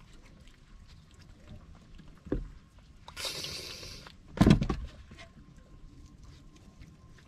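A cat hisses for about a second at a raccoon crowding its food dish, followed at once by a loud thump on the wooden table. Small clicks of eating and light knocks come before and after.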